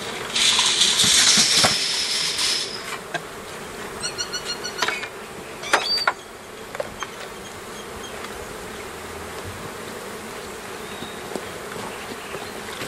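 Honeybees humming steadily around the hives. A loud hiss of noise overlies the hum for about two seconds near the start, and a few sharp clicks come around the middle.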